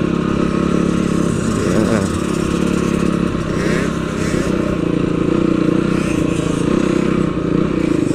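Yamaha TT-R trail bike's single-cylinder four-stroke engine running steadily, with brief rises and falls in pitch about two and four seconds in as the throttle changes.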